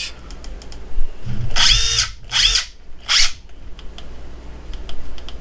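Makita XDT14 18V brushless cordless impact driver run free with no load in three short trigger pulls, each under a second, its motor whining up to speed and stopping again without hammering.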